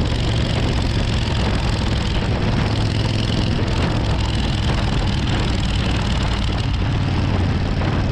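Suzuki Intruder 1400's V-twin engine running steadily at cruising speed, over a steady rush of wind and road noise.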